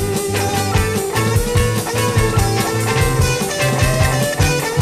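Instrumental rock music: an electric guitar plays over a bass line and drums, with no singing.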